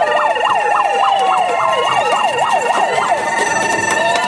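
Handheld megaphone's siren setting sounding a fast up-and-down yelp, about four sweeps a second, that stops about three seconds in. Several steady high tones are held underneath it.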